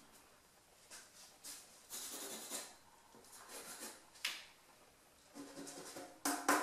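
Pencil sketching on drawing paper: a series of short, scratchy strokes, some in quick runs, with a louder brief sound near the end.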